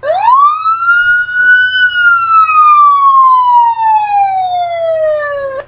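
A siren sounding one wail: its pitch climbs quickly in the first half second, then falls slowly over about four seconds before cutting off suddenly.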